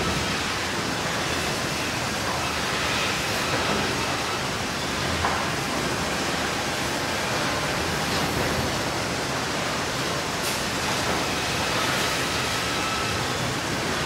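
Sawmill machinery running steadily: a dense, even noise with a faint thin whine and a few light knocks.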